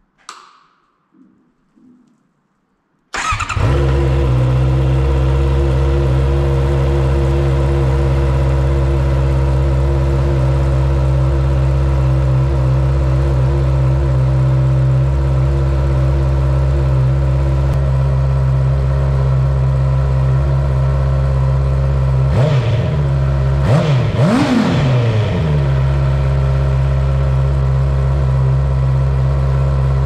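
Honda CB650R's inline-four engine starting about three seconds in after a faint click, then idling steadily. A little past the middle it is revved twice in quick succession, pitch rising and falling each time, before settling back to idle.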